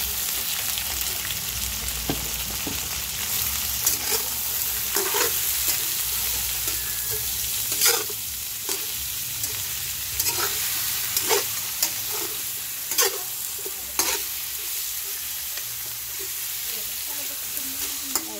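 Wet pork hock pieces sizzling in a hot stainless-steel frying pan with onion and garlic, the metal spatula scraping and knocking against the pan about ten times at irregular intervals as the meat is stirred. The sizzle eases off slightly toward the end.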